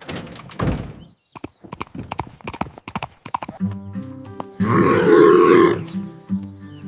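Hooves clopping in quick, irregular knocks, with gentle background music coming in about halfway through. A loud animal call is heard about five seconds in, lasting about a second.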